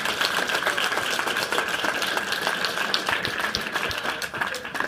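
Audience applause, a dense patter of many hands clapping, dying away near the end.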